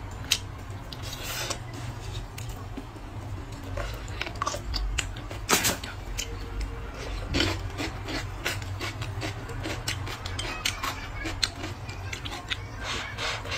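Close-up eating sounds: chewing and mouth noises, with irregular sharp clicks of wooden chopsticks against a ceramic bowl.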